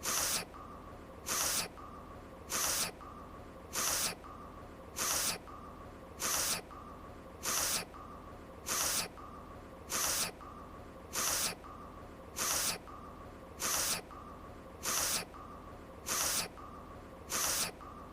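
A voice-acted anime sniffle, one short hissy inhale through the nose, repeated in an even loop about once every second and a quarter, with a faint steady hum between sniffs.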